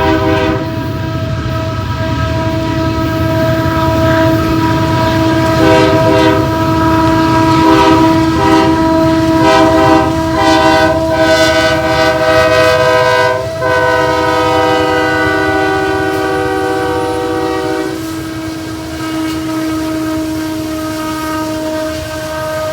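A freight train passing with its multi-note air horn held in long chord-like blasts over a steady rumble. Wheels click on the rail joints partway through.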